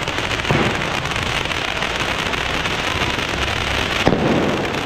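Ground fountain firework spraying sparks with a steady crackling hiss, broken by two sharp bangs, one about half a second in and one near the end.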